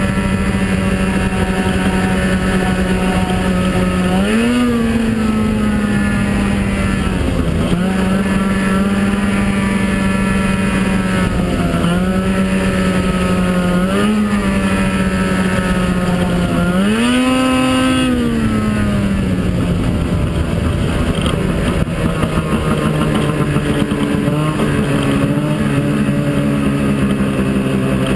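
Snowmobile engine running at a steady pitch, rising briefly with the throttle a few times, most strongly about two-thirds of the way through. It then settles to a lower, steady note for the last several seconds.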